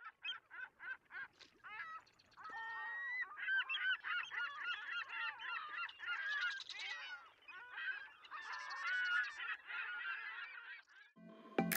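A flock of birds calling, with many honking calls overlapping; it starts with a few separate calls and thickens into a dense chorus. Music comes in loudly near the end.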